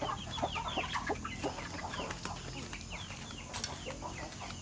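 Chickens calling while they feed: a rapid run of short, high, falling peeps, several a second, that thins out after about three seconds. A sharp tap comes near the end.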